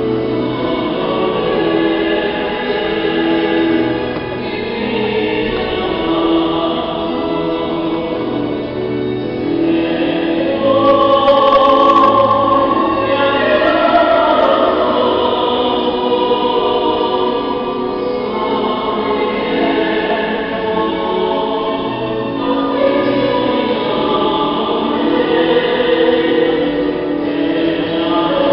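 Choir singing a slow hymn in long held notes.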